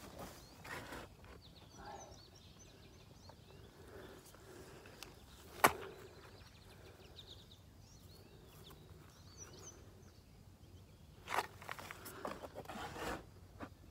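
Shovel scooping loose soil and dirt being tossed out of a dug pit: a few soft scraping scoops, with one sharp knock about halfway through. Birds chirp faintly in the background.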